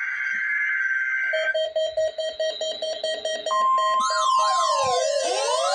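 NOAA Weather Radio weekly test alert. It opens with the harsh buzzing screech of a SAME digital header burst. Then comes rapid beeping, and about three and a half seconds in the steady 1050 Hz warning alarm tone starts. Rising-and-falling siren sweeps from the weather radio receivers join it about a second later.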